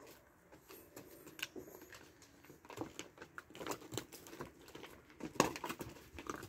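Scattered taps, knocks and rustling from cattle and people moving about on a barn floor. It gets busier from about three seconds in, with the loudest knocks a little past five seconds.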